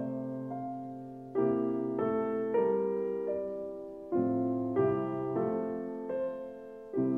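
Slow piano music: a melody of single notes over low chords struck every few seconds, each note ringing and fading away.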